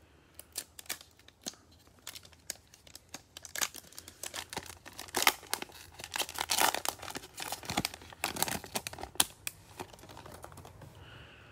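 Foil wrapper of a Panini Prizm football card pack being torn open and crinkled in the hands, a run of sharp crackles that comes thickest about halfway through and dies down near the end as the cards slide out.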